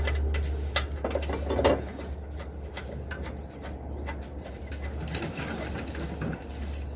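Metal tools clicking and knocking while working under a lawn tractor's mower deck, several sharp knocks in the first two seconds and lighter clicks after, over a steady low hum that fades about two seconds in.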